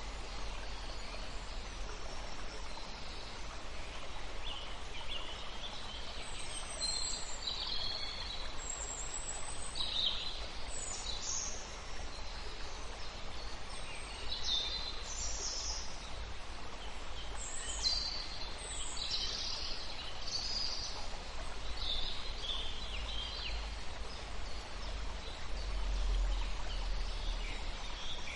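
Birdsong ambience: short chirps and calls coming at irregular intervals, over a steady background hiss with a low rumble.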